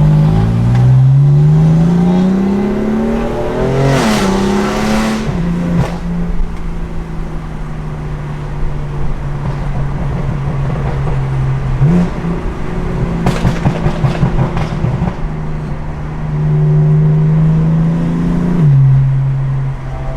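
BMW M4's twin-turbo straight-six through a Frequency Intelligence aftermarket exhaust, accelerating hard with quick upshifts where the pitch drops, then cruising steadily. A run of rapid crackles comes from the exhaust about twelve to fifteen seconds in. One more climbing pull ends in a drop near the end.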